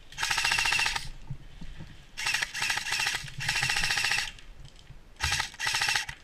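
Airsoft electric gun (AEG) firing six bursts on full auto, a rapid even rattle of shots, the first and fourth bursts the longest at about a second each.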